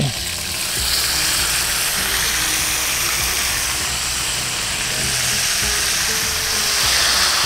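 Honey-and-soy-marinated chicken pieces sizzling as they are laid into hot oil in a black skillet. The steady, loud sizzle swells about a second in as the wet pieces hit the oil.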